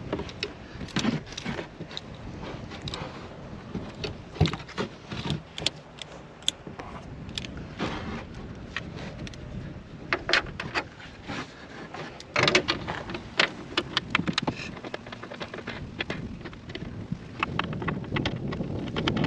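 Irregular plastic clicks and knocks from a car taillight assembly and its bulb socket being handled and fitted back into place, with a busier run of clicks about halfway through.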